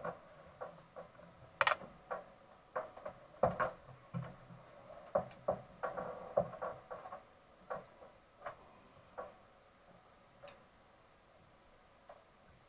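Irregular clicks, taps and knocks of hands handling fittings inside a stripped race car's cabin. Busy for about nine seconds, then only a few scattered clicks.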